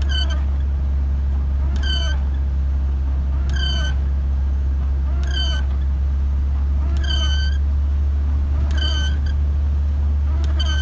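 A short high-pitched squeak repeating at a steady pace, about once every one and three-quarter seconds, seven times, over a steady low drone.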